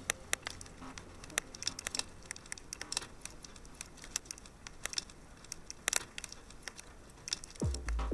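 Log fire crackling: irregular sharp pops and snaps over a soft hiss. Near the end, deep electronic bass kicks with a falling pitch come in, about two a second.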